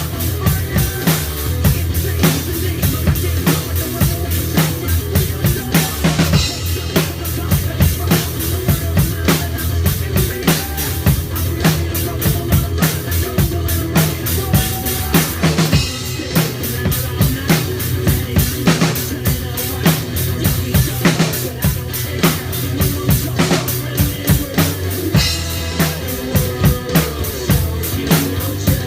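Drum kit played in a fast, driving rock beat, with kick drum and snare strikes packed many to the second under continuous cymbal wash.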